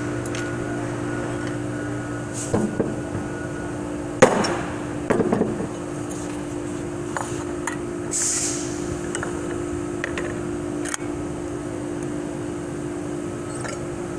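Metal transmission parts knocking and clattering as they are handled, with one sharp knock about four seconds in and a short rattle just after, over a steady hum.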